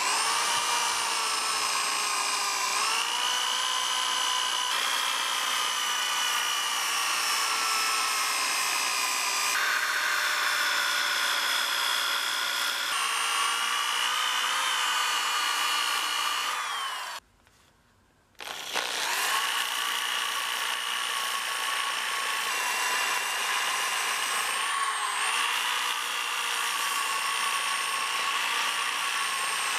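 Electric random orbital sander running with a steady whine as its disc sands the steel hatchet head. It stops for about a second a little past halfway, then starts again.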